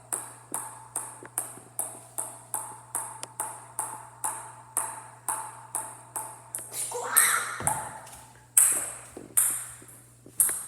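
Ping pong ball being hit repeatedly into the air with a paddle, a sharp tap about twice a second in an even rhythm. About seven seconds in the rhythm breaks with a louder, drawn-out sound, and after a short pause the hits come back louder and less even.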